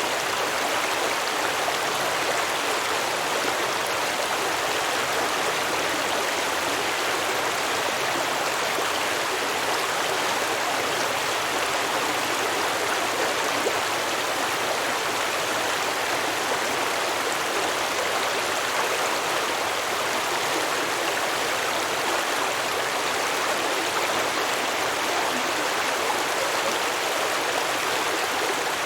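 Small stream of water flowing over rocks, a steady babbling rush with no pauses or changes.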